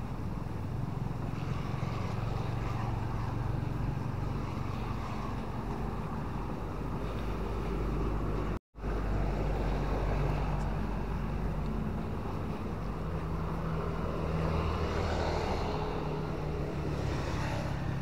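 Seaside road traffic ambience: car engines and passing vehicles as a steady low rumble. The sound cuts out for a split second about halfway through.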